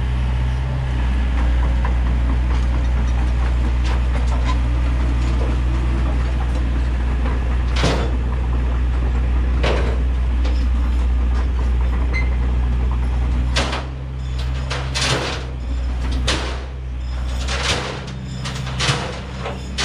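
Diesel engine running steadily at idle. Sharp metal clanks and knocks come over it twice in the middle and several times near the end, as the steel dump bed is worked on.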